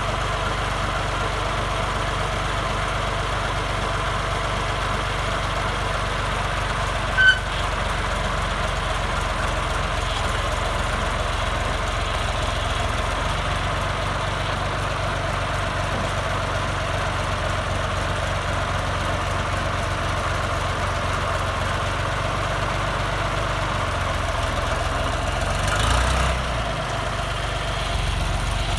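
John Deere 2240 tractor's three-cylinder diesel idling steadily. There is one brief sharp sound about seven seconds in, and the engine note swells briefly near the end.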